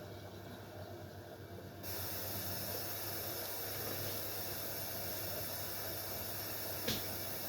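Haier 7.5 kg washing machine running mid-cycle: a steady low hum with a steady rushing hiss of water that comes in about two seconds in, and a single click near the end.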